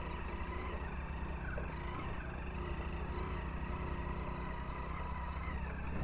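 Motorcycle engine running steadily under way over a rough dirt track, a low even rumble with no revving up or down.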